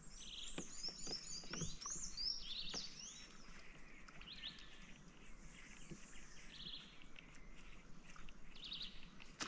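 Birds calling: a quick run of high chirps sliding up and down, then a few short trills later on, over faint steady background hiss.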